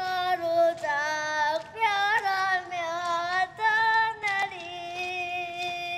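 A high voice singing a slow melody of long, held notes with a wavering vibrato and short slides between them.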